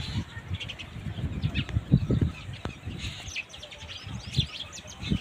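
Birds chirping in many quick, short high calls, over irregular low thumps and rumble.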